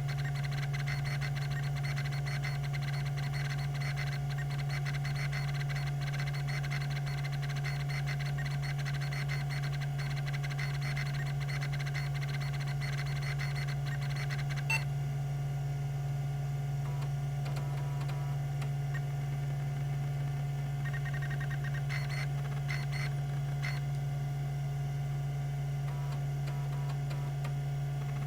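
Tandon TM362 MFM hard drive running, with a steady hum from its 3600 RPM spindle. For about the first half, its rack-and-pinion stepper head actuator ticks rapidly through seeks. About halfway through comes a single sharp click, then only a few short clusters of seek ticks.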